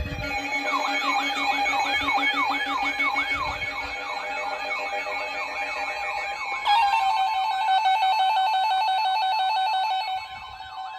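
Electronic emergency-alert tones: a siren-like sweep rising and falling about three times a second over steady tones, switching suddenly about two-thirds through to a steady two-tone attention signal that drops away near the end. They introduce a weather warning broadcast.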